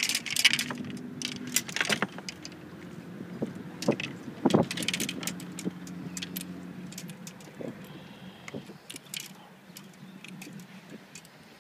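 Small clicks and rattles of fishing tackle being handled: rod, spinning reel, line and a sliding sinker. They come thickest in the first couple of seconds and again around the middle, and thin out toward the end, over a faint steady low hum.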